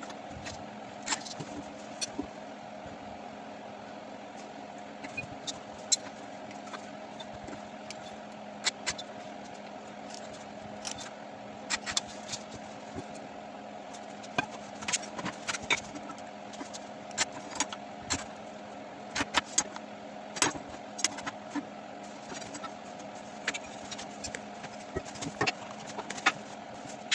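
A machine tool's motor running at a steady pitch, with many irregular sharp clicks and ticks over the hum.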